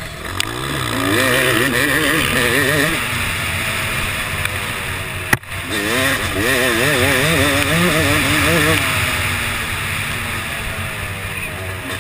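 Yamaha YZ250 two-stroke single-cylinder motocross engine revving hard, its pitch wavering rapidly up and down. There is one sharp knock about five seconds in.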